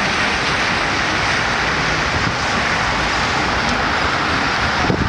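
Steady city street noise on a rainy day: an even hiss of traffic on wet roads, with a faint knock near the end.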